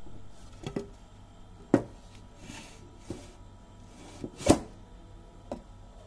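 Old wooden planks knocking against each other as they are handled and one is laid down on the others: a string of sharp wooden knocks, the loudest a little under two seconds in and about four and a half seconds in, with a brief scuff between them.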